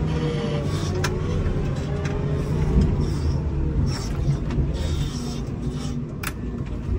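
Komatsu WA270 wheel loader's diesel engine running under load, heard from inside the cab, its pitch rising and falling as the machine pushes snow with a Metal Pless Live Edge plow. A few sharp knocks and clanks come through, about a second in, near four seconds and a little after six.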